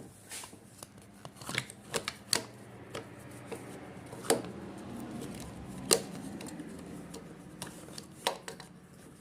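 Irregular clicks and knocks of a replacement motorcycle ignition lock and its small metal and plastic parts being handled and fitted in place, with two sharper knocks near the middle.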